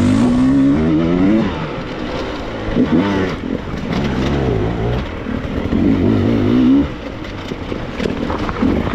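Dirt bike engine revving up and down repeatedly, its pitch climbing and dropping in several bursts, with a lull about seven seconds in.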